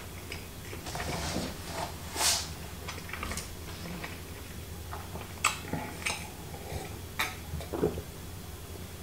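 A man sipping beer from a stemmed glass at the table, with a scatter of short, light clinks and taps of glass and tableware.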